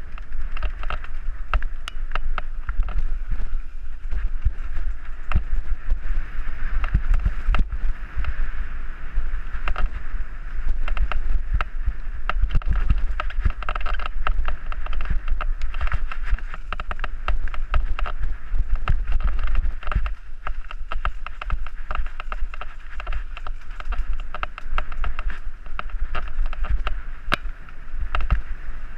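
Bicycle ridden fast along a bumpy dirt trail, heard from a helmet-mounted camera: steady wind buffeting on the microphone, tyre noise on dirt, and many small rattles and knocks as the bike goes over bumps.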